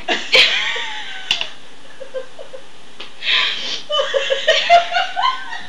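Giggling and laughter in short, choppy bursts, with a sharp click about a second in.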